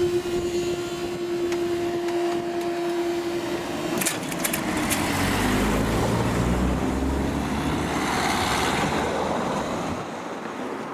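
A train horn holds one steady note for about four seconds, then the diesel train runs over the crossing: sharp clicks of wheels on rail joints, then a low engine rumble with a falling pitch as it passes.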